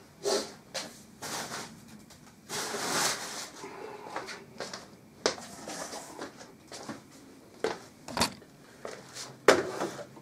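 Hands handling computer parts and a PC case's plastic fittings: irregular clicks and knocks, with a longer rustle about two and a half seconds in and sharper knocks near the end.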